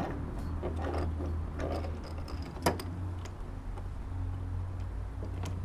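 Hands working sonar transducer cables and plastic connectors into a grommet: soft rustling and small clicks, with one sharper click about two and a half seconds in, over a steady low hum.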